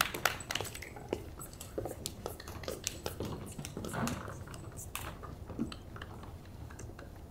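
Irregular small clicks and taps, several a second at first and fewer later, over a low steady hum.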